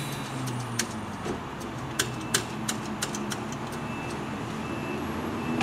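Steady low rumble of an idling vehicle, with a few scattered sharp clicks. A loud train-horn blast cuts in at the very end.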